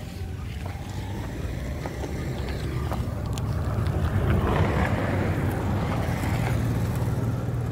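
A motor running with a steady low drone, and a rushing hiss that swells about four seconds in and eases off near the end.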